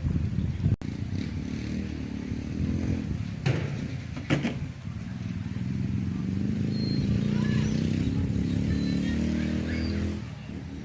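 An engine running steadily, its pitch and level rising a little past the middle and falling away near the end.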